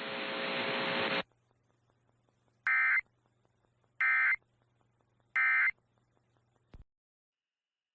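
Emergency Alert System end-of-message signal: three short bursts of digital data tones, each about a third of a second, spaced about 1.3 seconds apart. They follow about a second of buzzing radio static that grows louder and then cuts off.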